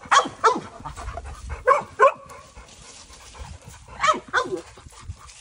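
American Bulldog barking: six barks in three pairs, one pair near the start, one about two seconds in and one about four seconds in.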